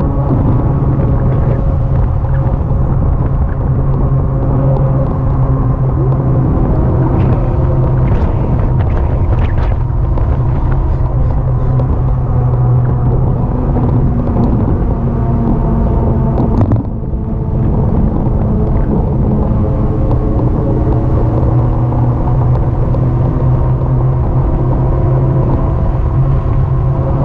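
Steady low rumble of wind and road noise while riding an e-bike, with a constant hum underneath. It briefly drops away about seventeen seconds in.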